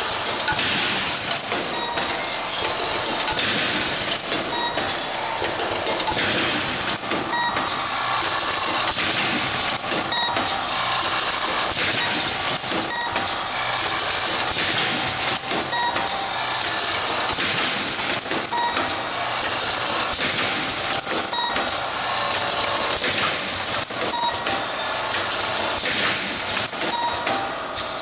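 Automatic connector assembly machine running: a steady mechanical whir and hiss, with a sharp clack repeating about every two and a half to three seconds as the machine cycles.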